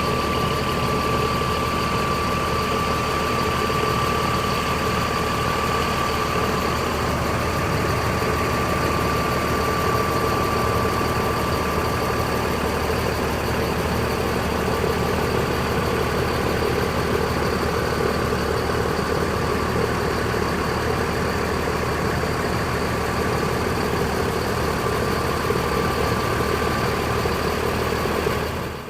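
Diesel engine of a parked coach idling steadily while being warmed up, a thin steady whine running over the low rumble.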